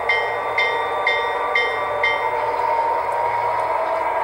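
Sound decoder of an HO-scale DCC Norfolk Southern diesel locomotive, played through its small onboard speaker. The diesel engine sound runs steadily while a locomotive bell rings about twice a second. The bell stops about two seconds in, and the engine note then rises a little.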